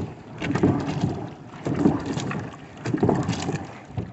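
Water and clothes sloshing inside a hand-cranked barrel washing machine as the drum is turned. The water surges in a slow rhythm, about once every second and a quarter, with knocks mixed in.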